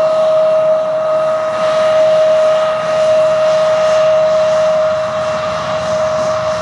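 Bombardier CRJ900's twin rear-mounted GE CF34 turbofans whining while the jet taxis, one high steady tone over a rushing hiss, easing off slightly near the end.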